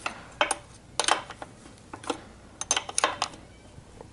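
Metal clinks and clicks of a 13 mm wrench working a motorcycle's rear chain adjuster bolt, in several short clusters as the bolt is turned a little at a time to take up chain slack.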